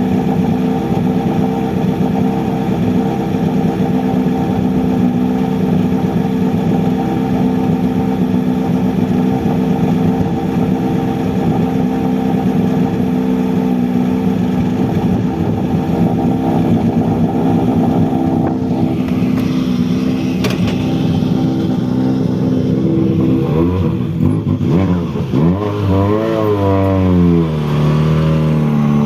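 Volkswagen Polo GTI R5 rally car's turbocharged four-cylinder engine running at a steady note for most of the time, then revving up and down in repeated swings in the last several seconds.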